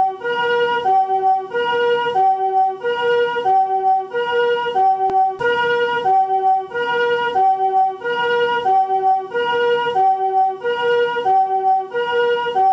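Japanese ambulance's electronic two-tone siren in its newer chord ('comfort') version: a high and a low tone, each sounded as a chord, alternating about every two-thirds of a second.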